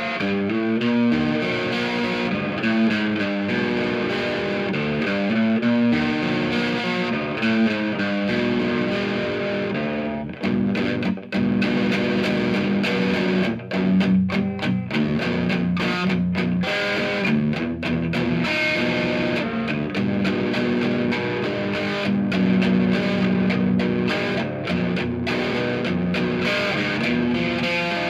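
Solid-body electric guitar's bridge P90 pickup, tone control up, played through a small tube amp with the gain at maximum: overdriven chords and single notes, with a few short choppy, muted passages partway through.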